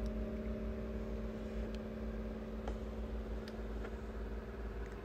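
Steady machine hum, a low drone with a few constant tones over it, plus a few faint small clicks.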